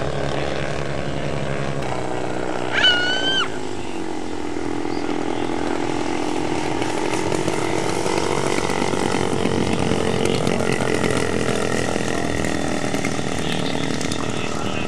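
Engines of giant-scale radio-control Cub model airplanes running in flight. The engine note drops about two seconds in, then slowly climbs again as the planes pass low. A short, high whistle-like call about three seconds in is the loudest sound.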